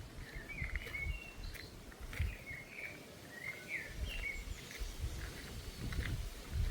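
Birds chirping: short, repeated calls, several overlapping, with a low uneven rumble and thuds beneath them.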